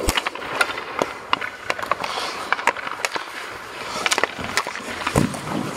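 Ice hockey pucks clacking off a stick blade and the ice, many sharp irregular clacks, over the scraping of skate blades on ice.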